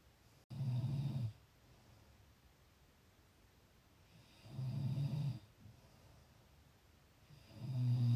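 A person snoring in sleep: three low snores about three and a half seconds apart, each lasting about a second, with quiet between them.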